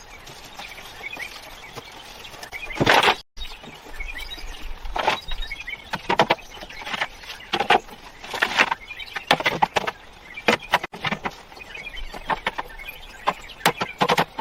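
A series of sharp knocks or strikes at an uneven pace, roughly one to two a second, starting about three seconds in. Birds chirp faintly before them.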